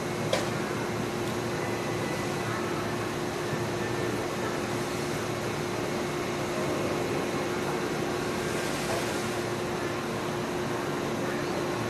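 Steady mechanical hum with a constant low tone from an electric commuter train rolling slowly into a train-wash plant and the wash machinery around it. A single sharp click comes about half a second in, and a brief hiss about nine seconds in.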